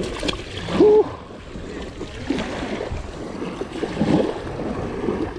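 Small waves washing up a concrete boat ramp, splashing as a hooked snook flops at the water's edge and is grabbed by hand. A brief exclamation about a second in is the loudest moment.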